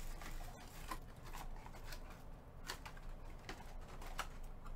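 Quiet room tone with a steady low hum and a few faint, scattered clicks and taps.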